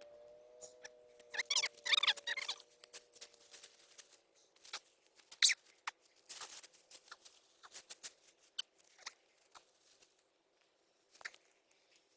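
Irregular rustling, crunching and clicking of soil and potato plants being handled, as potatoes are dug out by hand, with a sharper knock about five and a half seconds in.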